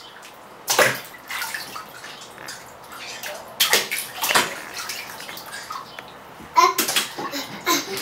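Toddler splashing bath water with his hands in a bathtub: several short splashes, about a second in, around four seconds and again near the end.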